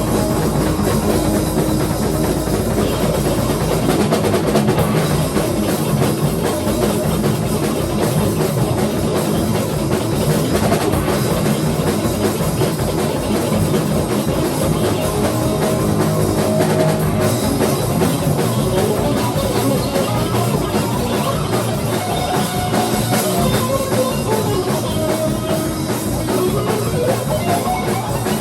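Improvised instrumental rock played live by a band: a drum kit keeping a driving beat under electric guitar, with sliding guitar lines near the end.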